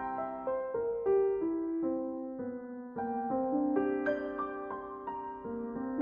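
Soft background piano music, a slow melody of single sustained notes.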